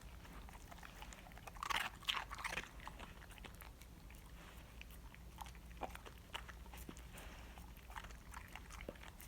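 A dog chewing and crunching a raw Cornish hen, bones included, with scattered wet clicks and a louder run of crunches about two seconds in.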